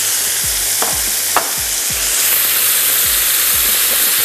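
Sauce-marinated boneless chicken pieces sizzling steadily on a hot grill pan as sauce is spooned over them with a wooden spoon. Two sharp clicks about a second in.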